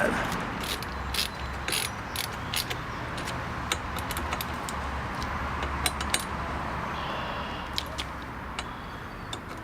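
Irregular light clicks and clinks of small metal hardware being handled: bolts, washers and bushings being fitted to an auxiliary LED light and its bracket, over a low steady hum.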